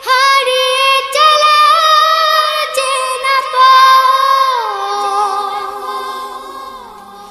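Young voices singing a wordless a cappella passage in harmony, with long held notes. About halfway the notes step down, lower voices join in, and it fades near the end.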